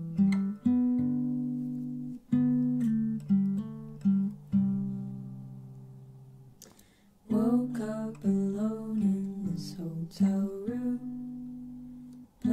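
Background music: an acoustic guitar intro, single notes plucked and left to ring, turning into a busier run of notes about seven seconds in.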